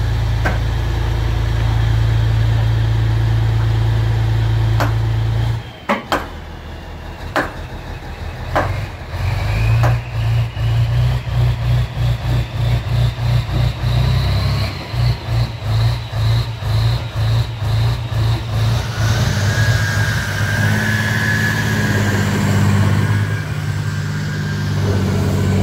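M88 armoured recovery vehicle's diesel engine running, first at a steady idle, then, after a break about six seconds in, with a rapidly pulsing, uneven note and a whine that rises over several seconds. A few sharp metallic knocks sound in the first several seconds.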